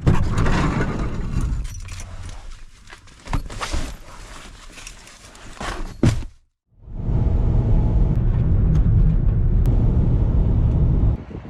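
Wind buffeting the microphone: a rough low rumble with gusty rises. It cuts to silence for a moment about six and a half seconds in, then resumes as a steadier low rumble.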